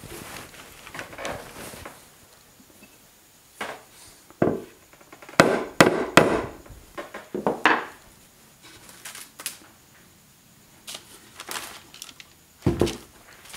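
Plywood panels and a wooden frame knocking and scraping together as they are fitted and handled on a workbench. There are several sharp wooden knocks, most of them about four to eight seconds in, and a heavier thud near the end as the assembly is tipped onto the bench.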